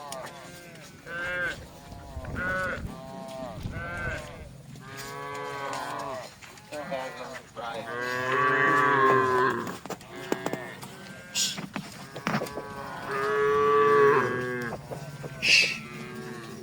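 Cattle mooing: a string of short moos from more than one animal, then two longer, louder moos, one about halfway and one near the end. Two brief, sharp, high sounds cut in during the second half.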